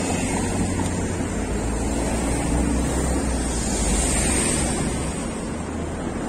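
Street traffic noise: a minivan passes close, then a steady hiss and low rumble of road traffic carries on, with some wind on the microphone.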